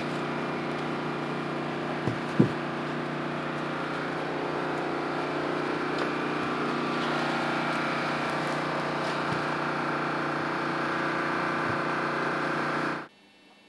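A train's diesel engine idling with a steady drone, two short knocks about two seconds in. It cuts off abruptly near the end.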